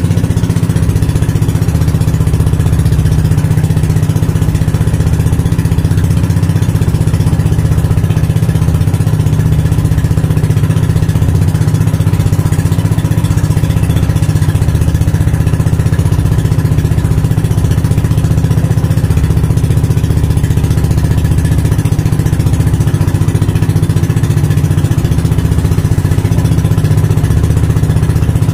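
A motor engine running steadily at one even speed, loud, with a constant low hum and no change in pitch.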